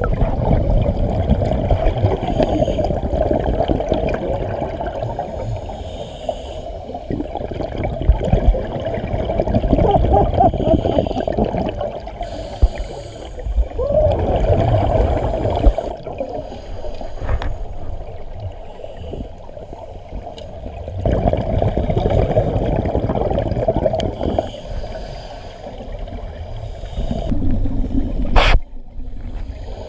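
Scuba regulator breathing heard underwater: bursts of exhaled bubbles rumbling for a few seconds at a time, with quieter inhalations between, muffled by the camera housing. A sharp click sounds near the end.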